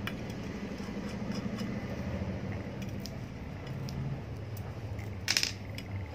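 Screwdriver working the terminal screws on an electric iron's thermostat: small metal clicks and scrapes of loosening screws over a steady low hum, with a brief louder clatter about five seconds in.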